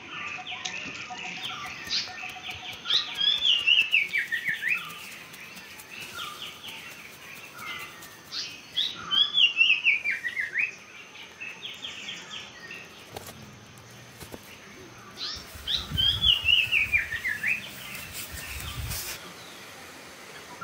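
Birdsong: one bird repeats a quick descending series of chirps three times, about six seconds apart, among scattered chirps of other birds. A faint steady high tone runs underneath, and a low rumble comes in near the end.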